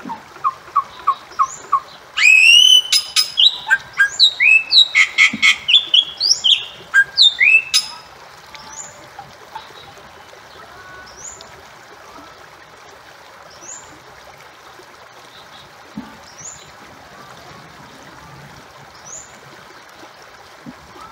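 Bali myna calling. A quick run of short repeated notes leads into a loud burst of rising and falling whistles mixed with sharp clicks, lasting about six seconds. After that there are only faint, high rising chirps about every second and a half over a steady background hiss.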